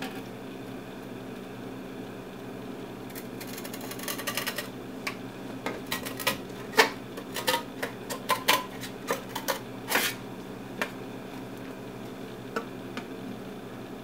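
Tin snips cutting through a copper-clad circuit board: a run of sharp, uneven clicks and cracks as the blades bite, from about three seconds in until about eleven seconds, with one more near the end. A steady low hum runs underneath.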